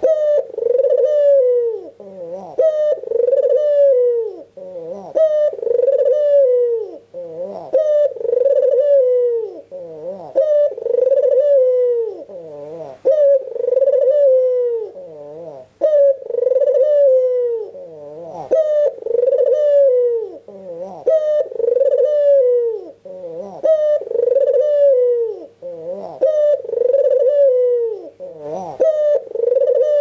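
White domestic ringneck dove (puter) cooing without pause, a rolling coo phrase repeated about every two seconds.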